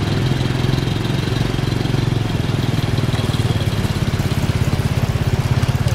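A small engine idling steadily with a fast, even putter.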